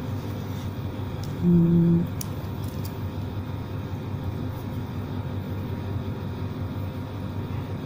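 Steady low rumble of background room noise, with a brief hummed note from a man's voice about one and a half seconds in and a few faint small clicks just after.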